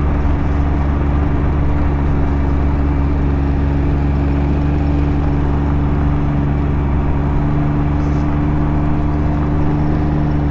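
Can-Am Ryker three-wheeler's engine running at a steady cruising speed, a constant drone with no revving, under a steady rush of wind and road noise.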